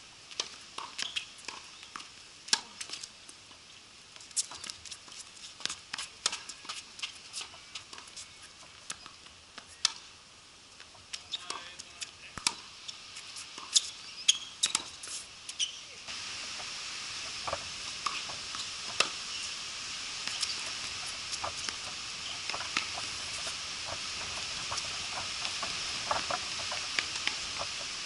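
Tennis rally on a hard court: sharp pops of racquets striking the ball and the ball bouncing, among many smaller clicks and taps. About halfway through, a steady hiss sets in and grows slowly louder.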